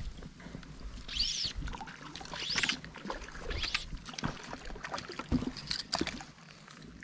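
Fly line being stripped in by hand in several short hissing swishes about a second apart. A hooked brook trout splashes and thrashes at the surface close in.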